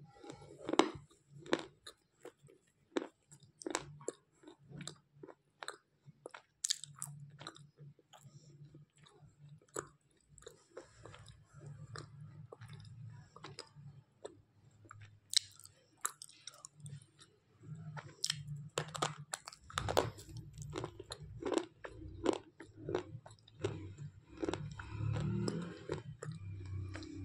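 White slate pencils being bitten and chewed close to the microphone: a long string of sharp, irregular crunches with softer grinding chews between them.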